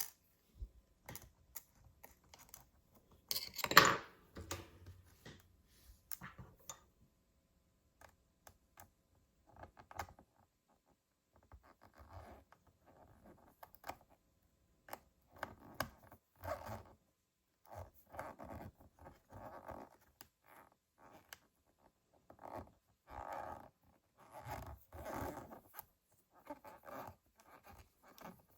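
Faint scratching, scraping and clicking as a small screwdriver and parts are worked inside an open MacBook Pro A1502 while an NVMe SSD adapter is being screwed down. A louder scrape comes about four seconds in, and a run of short scratchy strokes follows in the second half.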